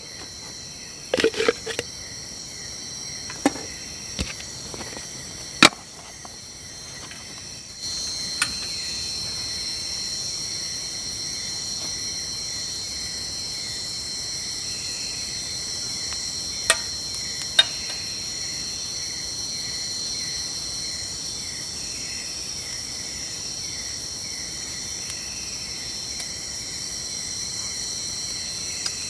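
Night insects such as crickets: a steady high trill over a lower repeated chirp, louder from about eight seconds in. A few sharp clicks and knocks of cooking gear being handled in the first seconds, and two more clicks later.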